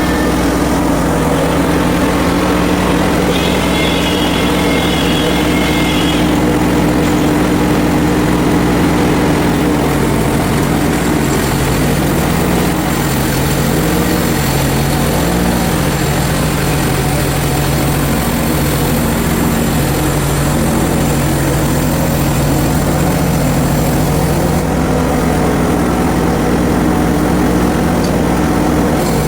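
Portable band sawmill's engine running steadily under load, its pitch wavering and settling a little lower about halfway through.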